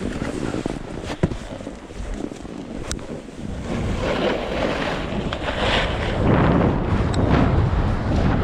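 Wind buffeting the microphone and Rossignol skis scraping over packed snow, growing louder from about three and a half seconds in as the skier gathers speed down the slope. A sharp click about a second in.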